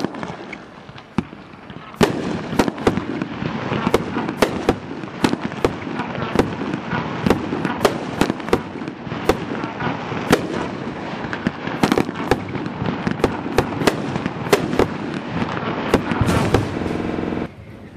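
Dominator Fireworks 'Viper' aerial firework firing a long volley, its shots and star bursts cracking about two times a second over a steady crackle. It thins out a second or two in, then fires hard until it dies away near the end.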